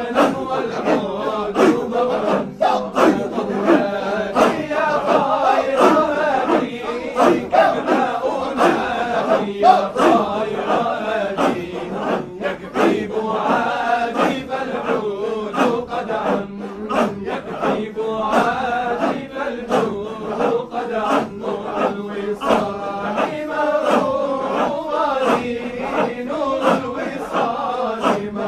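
Group of men chanting a Shadhili Sufi dhikr (hadra) together, many voices in a melodic chant with short sharp accents keeping a fast, steady rhythm underneath.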